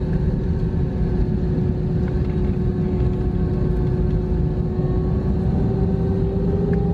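Airbus A321 jet engines at takeoff power, heard from inside the cabin: a loud steady rush with an engine tone that slowly rises in pitch as they spool up for the takeoff roll.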